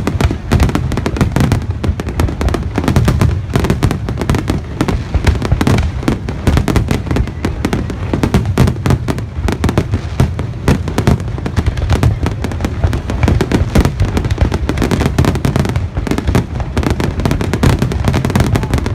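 Fireworks finale: a rapid, continuous barrage of aerial shell bursts, booms and crackles overlapping with no pause.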